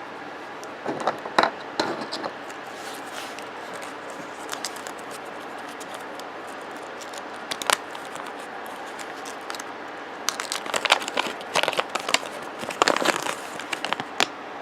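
Crinkling and rustling of small paper and plastic toy packaging being handled, in two bouts of crackles about a second in and again from about ten seconds in, with a single click in between, over a steady low hiss.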